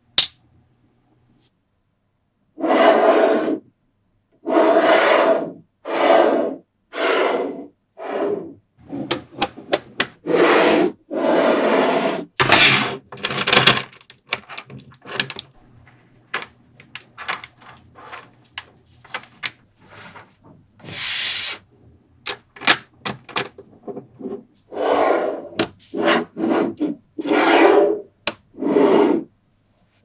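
Small magnetic balls rubbing, rolling and clicking against one another as hands push and shape them. A sharp snap comes right at the start, then after a short pause a long run of short rasping bursts roughly a second apart, with quick strings of clicks in between.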